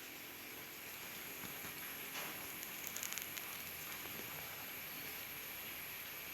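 Faint steady background hiss, with a few light ticks about three seconds in.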